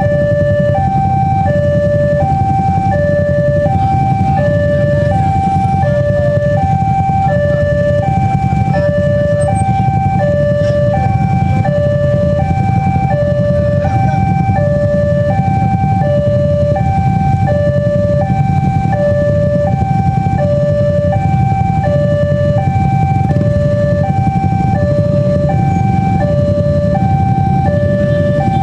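Railway level-crossing warning alarm sounding with the barriers down: an electronic two-tone signal, a higher and a lower tone alternating steadily and without a break, over a constant low rumble.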